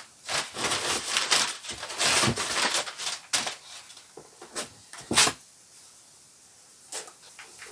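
Packaging being handled during an unboxing: a run of rustling and crinkling, then a few separate sharp clicks and knocks, the loudest about five seconds in.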